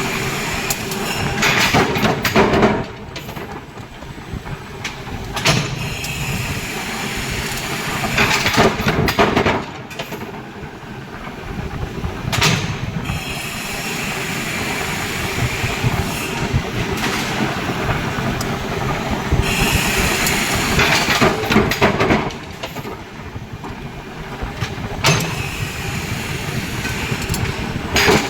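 Industrial forging machine running with a steady mechanical din, broken every three to four seconds by a loud stroke with a hiss.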